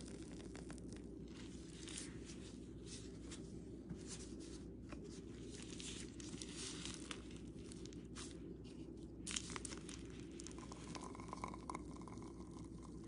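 Soft crinkling, crackling and squishing of a plastic piping bag being squeezed as whipped body butter is piped into clear plastic jars, with scattered small clicks and one sharper click about two-thirds through. A low steady hum runs underneath.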